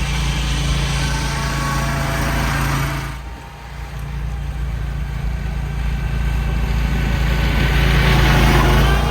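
Mini snowcat's small engine running as the tracked machine drives, with a short dip about three seconds in and growing louder toward the end.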